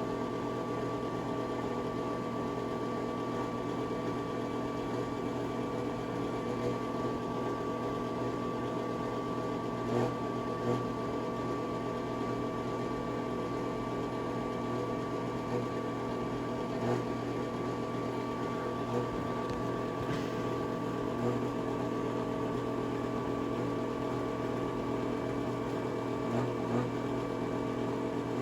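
Bathroom exhaust fan running steadily, a constant whirring hum with a faint high whine, and a few light knocks now and then.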